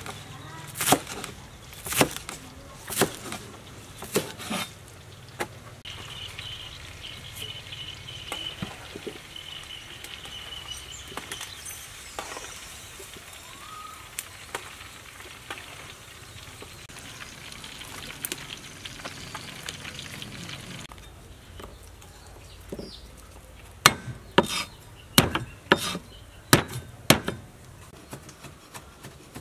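A knife chopping green onions on a wooden cutting board, about one chop a second. Then quail sizzling in a wok while a metal spatula stirs and scrapes. Near the end comes a quicker run of knife chops on the board.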